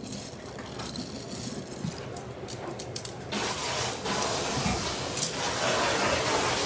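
Sea snail shells clicking and clattering against each other as a hand rummages through a box of them. About three seconds in, a steady rushing noise sets in and holds.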